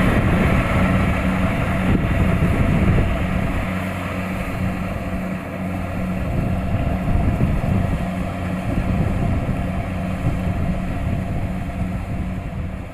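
Kubota DC-70 Plus combine harvester's diesel engine running steadily with a constant low hum, its level sagging slightly and then recovering midway.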